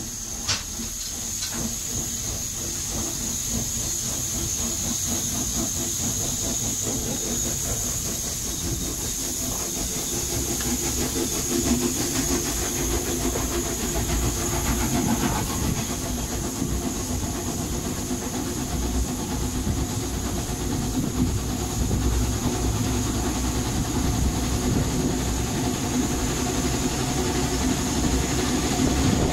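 Sentinel vertical-boiler steam locomotive pulling a train away: a steady high steam hiss over the low rumble of the train on the rails, growing louder as it gets under way. A single sharp knock about half a second in.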